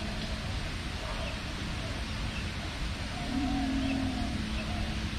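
Outdoor ambience: a low steady rumble with faint distant voices and bird calls, and one louder low drawn-out sound lasting about a second, about three seconds in.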